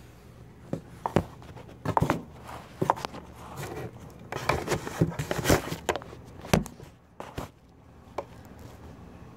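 Handling noise: irregular knocks, taps and rubs as the camera is moved about and set down on the wooden workbench, thickest in the middle and dying away after about seven seconds.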